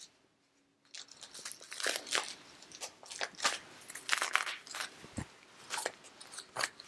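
Plastic packets of crystal-growing powder crinkling and crackling in irregular bursts as they are handled and laid down. The sound starts about a second in.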